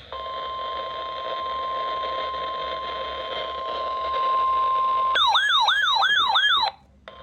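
NOAA Weather Radio 1050 Hz warning alarm tone: a loud, steady single tone lasting about five seconds, over radio hiss. It then gives way to an electronic siren-like warble, about three falling-and-rising sweeps a second, for a second and a half before cutting off.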